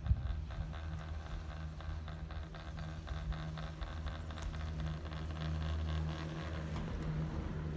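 Chairlift running as the chair rides along the haul cable: a steady low hum with faint clicking over it.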